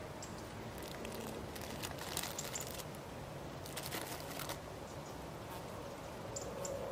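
A crisp packet rattling as it is handled, with short bursts of crinkling about two seconds and four seconds in.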